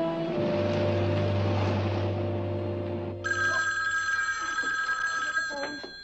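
Dramatic background music ends on a low held note. About three seconds in, a telephone bell starts ringing steadily and carries on until near the end.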